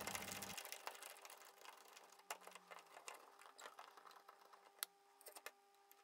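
Faint, scattered clicks and ticks of a screwdriver turning the screws that fix a metal dimmer switch plate to its back box, with one sharper click near the end.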